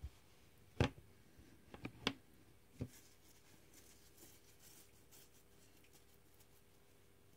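A handful of short, sharp knocks and clicks in the first three seconds, the loudest just under a second in, a close pair around two seconds, then only faint steady room hiss.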